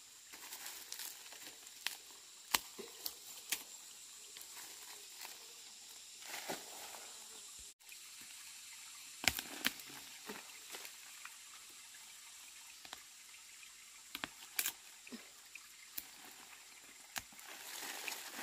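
Dry leaf litter and stalks crackling and snapping, and soil crumbling and falling, as medicinal plant roots are pulled from the ground and shaken clean of earth. The sound comes as scattered sharp crackles and snaps over a faint steady hiss.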